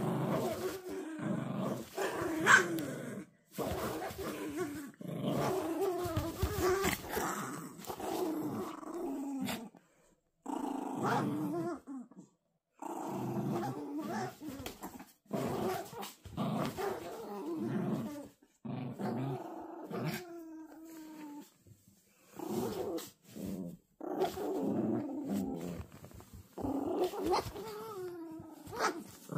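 Toy poodles growling in long bouts as they play tug-of-war over a cloth toy, with a few short pauses. There is one brief, sharp, louder sound about two and a half seconds in.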